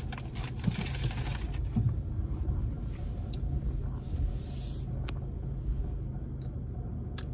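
Steady low rumble of a car's engine and tyres heard inside the cabin while driving.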